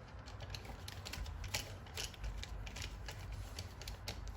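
Irregular light clicks and taps of hand tools and stiff electrical wire being handled, over a low steady hum.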